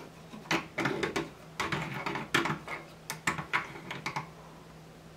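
3D-printed PLA multiple-gearing mechanism turned by its hand crank: irregular light plastic clicks and clacks from the rollers and gear teeth, plastic on plastic, stopping about four seconds in.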